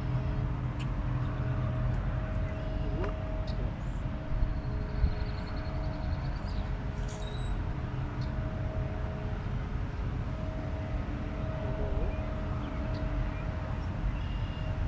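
Outdoor ambience: a steady low rumble with a faint steady hum under it, and a short high trill and a few brief chirps over it.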